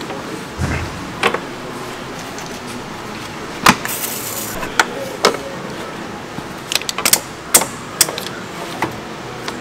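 Scattered sharp clicks and knocks of hand tools and parts being handled in a car's engine bay. A brief spray hiss from a trigger spray bottle comes about four seconds in.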